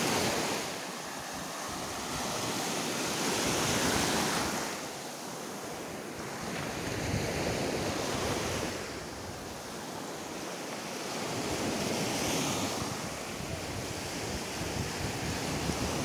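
Black Sea surf washing onto a sandy shore, swelling and ebbing about every four seconds, with wind buffeting the microphone.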